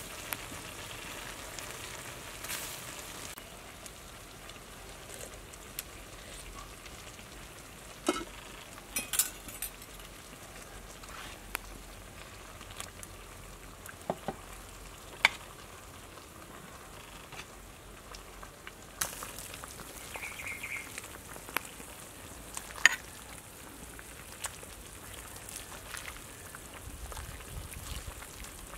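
Pot of water spinach soup boiling, a steady bubbling hiss, with scattered sharp clinks of a ladle against the pot as the soup is served out.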